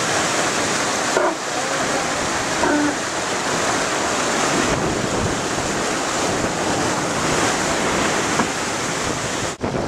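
Steady rush of foaming white water churned up by a Swan 45 sailing yacht planing at high speed, with wind buffeting the microphone. The sound breaks off for a moment near the end.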